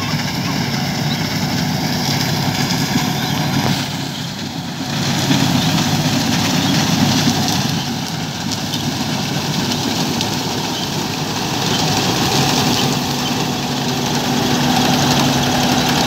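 John Deere 1075 combine harvester running steadily as it cuts standing wheat, its engine and threshing machinery making one continuous loud drone that briefly drops about four seconds in.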